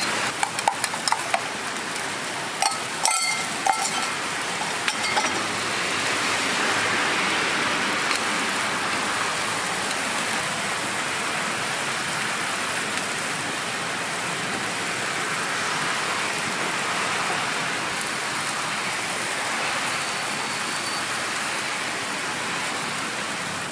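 Egg, sweet corn and shredded cabbage frying on a flat-top griddle: a steady, even sizzle. A few short metal clinks come in the first few seconds.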